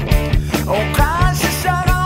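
Rock music with a steady drum beat, about three hits a second, under a bending melodic line.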